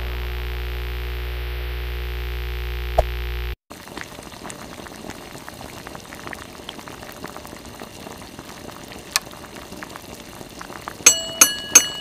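Logo-intro sound effects: a steady synth drone that cuts off suddenly about three and a half seconds in, then a faint crackling, fizzing hiss, and a few short bright chime-like notes near the end.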